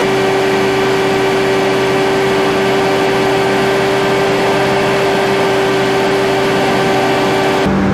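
C42 microlight's engine and propeller droning steadily in cruise flight, mixed with rushing wind noise. Near the end the note drops abruptly to a lower, duller drone.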